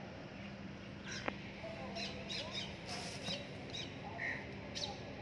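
Birds chirping and calling in a string of short high calls, with a single sharp click about a second in and a low steady hum underneath.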